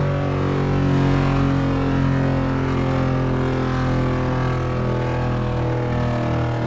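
Outdoor tornado warning siren sounding a low, steady tone that sinks slowly in pitch as it winds down.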